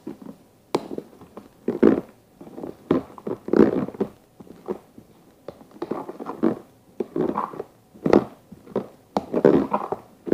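A spoon stirring and folding a creamy fruit salad in a plastic tub: a series of wet stirring strokes, roughly one a second, with a few sharp clicks of the spoon against the plastic.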